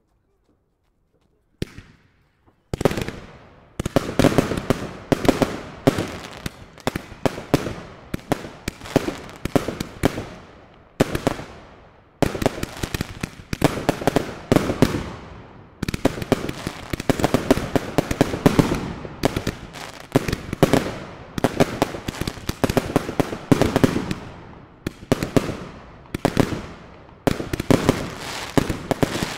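A consumer fireworks cake firing. Silent for the first couple of seconds, it starts with a single pop, then from about three seconds in fires shot after shot. The shells burst into gold glitter stars with dense, rapid overlapping pops and crackles, in waves every second or two.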